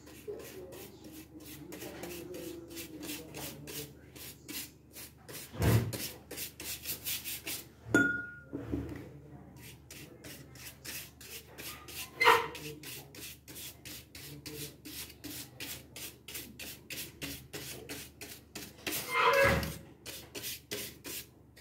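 Flat paintbrush bristles scrubbing a wet finish onto cut plywood: a quick, regular scratchy rubbing, about four strokes a second, with a few louder knocks of the brush or hand against the wood.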